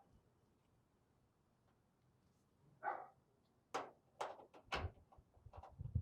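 Small metal clicks and knocks from handling the cabinet's steel bracket, screws and panels, several sharp taps in the second half, some with a low thud.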